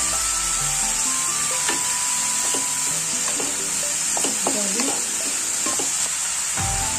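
Diced bottle gourd sizzling in hot oil in a nonstick pan with a steady hiss, stirred with a wooden spatula.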